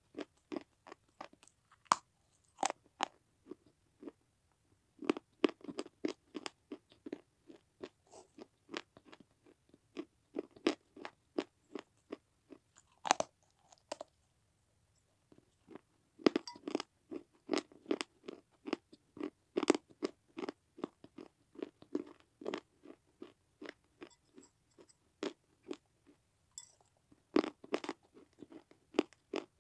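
A person biting and chewing pieces of a broken fired red-clay diya close to the microphone: runs of rapid, sharp crunches as the hard clay breaks between the teeth, with a few short pauses.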